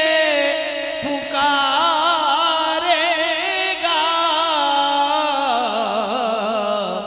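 Naat being sung: a voice holds long, wordless, drawn-out notes with strong vibrato, and the melody slides slowly downward over the last two seconds.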